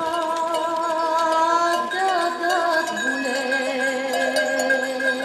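Folk music with long held, wavering notes; about three seconds in, the melody drops to a lower held note.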